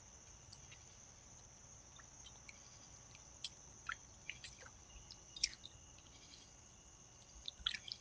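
Water in a shallow bird bath splashing and dripping as raccoons paw and climb in it, with a few sharp splashes from about the middle on and a quick cluster near the end. Insects chirr steadily throughout.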